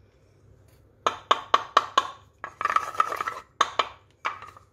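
Wooden mortar and pestle knocked against the rim of a small metal saucepan to tap the freshly crushed pepper into the sauce. About a dozen sharp knocks in quick runs start about a second in, each with a brief metallic ring.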